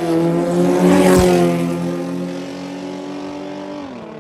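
Two race cars at full throttle pass close by, one of them powered by a Toyota 2GR V6, with the loudest moment about a second in. Their engines run on at a steady high note and fade into the distance, and the pitch drops sharply near the end.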